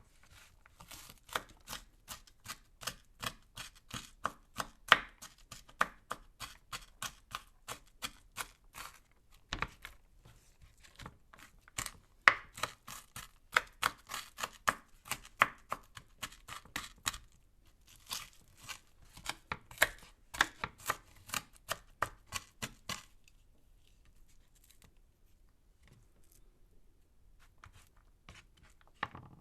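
Knife chopping an onion, sharp strokes about three a second in runs with brief pauses, stopping near the end and leaving only a few faint ticks.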